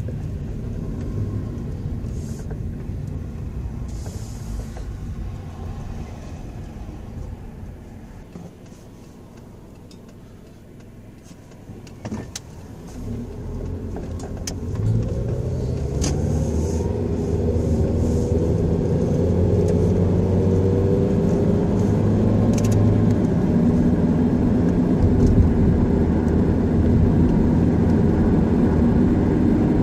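Car engine and road noise heard from inside the cabin. The car eases off and runs quietly for a few seconds about a third of the way in. About halfway through the engine pitch rises as it accelerates, then it runs steadily and louder at speed.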